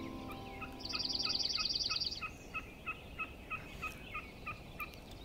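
Bird calls: a fast high trill lasting about a second, and a short two-pitched call repeated about three times a second throughout. A piano chord fades out at the start.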